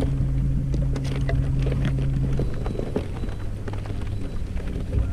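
Steady low hum of a boat's motor that drops to a lower hum about halfway through, with scattered clicks and knocks of fishing gear being handled close to the microphone.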